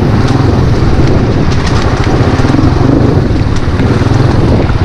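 Wind buffeting hard on the microphone over a running vehicle engine, as on a ride at speed.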